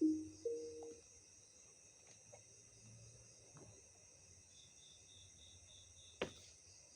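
Crickets chirping steadily in the background. At the very start a short two-note electronic tone steps up in pitch, and a single sharp click comes about six seconds in.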